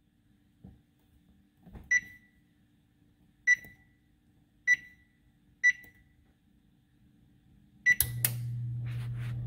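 Convection oven touch-control panel beeping at each key press: five short, high, identical beeps about a second apart. Two sharp clicks come with the last beep, and then a steady low hum as the oven switches on to bake.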